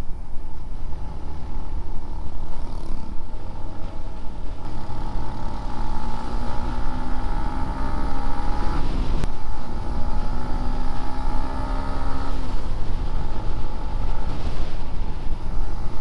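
Motorcycle engine accelerating, its note rising, then dropping at a gear change about nine seconds in and rising again before the throttle closes about three seconds later, over steady wind rumble on the helmet microphone.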